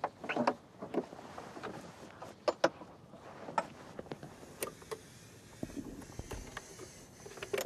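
Scattered light clicks and knocks of hands handling fittings on a helicopter's turboshaft engine during an inspection, with a brief low rumble near the end.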